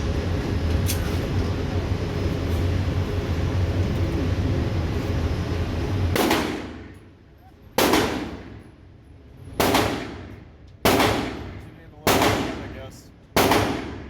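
A steady low hum runs for about six seconds and stops abruptly. Then a firearm fires six single shots, about one every second and a half, each echoing off the walls of an indoor range.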